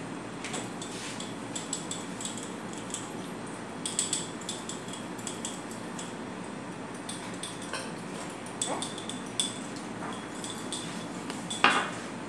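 Small clinks, taps and rustles of dishes, cutlery and foil being handled while eating at a table, over a steady background hum, with one sharper clatter near the end.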